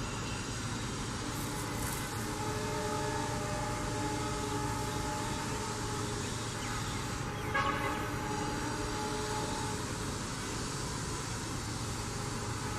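Horn of a WDG3A diesel locomotive sounding a long, held chord of several steady notes, over the low rumble of the locomotive's engine. A brief click is heard about seven and a half seconds in.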